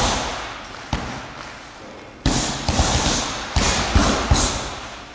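Gloved punches landing on a heavy punching bag: about eight sharp thuds, some single and some in quick runs of two or three.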